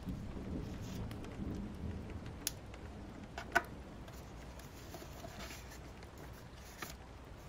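Rain ambience, a steady hiss with a low rumble in the first couple of seconds, and a few sharp clicks, the loudest about three and a half seconds in.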